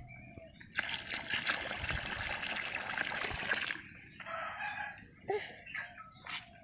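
Water poured into a large pot of paddy on the fire, splashing and gushing for about three seconds, then stopping. Afterwards a rooster crows in the background.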